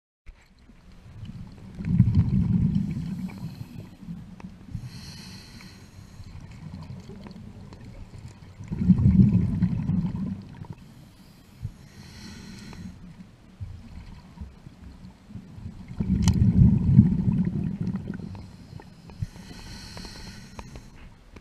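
Scuba diver breathing underwater through a regulator at a slow, even pace, about one breath every seven seconds: three exhalations come out as low bubbling rumbles, each followed a few seconds later by the hiss of an inhalation through the demand valve.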